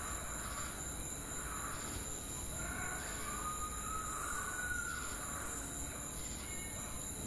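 Ambient sound-effect bed laid over the picture: a steady, high-pitched hiss, with a few faint whistled calls about three to five seconds in.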